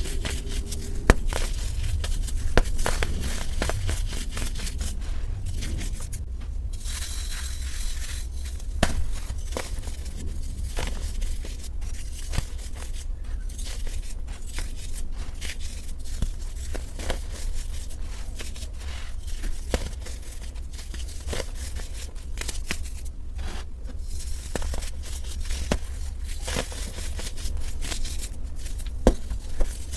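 Dried, dyed baking soda being crushed and crumbled, a steady run of crisp, brittle crunches and small cracks, over a constant low hum.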